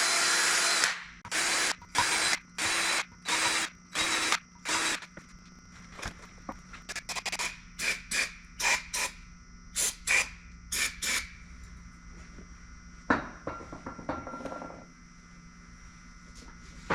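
Electric drill spinning a small nylon brush to clean engine valves: one longer run ending about a second in, then about six short bursts of the drill over the next few seconds. After that, quieter scattered clicks and rubbing with a few more brief bursts.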